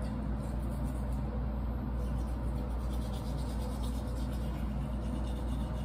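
Toothbrush scrubbing teeth, a steady rubbing sound over a low steady hum.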